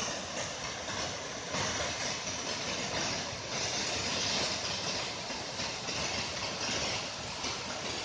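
Waterfall: the steady rush of water falling onto rock, swelling a little louder for a few seconds about a second and a half in.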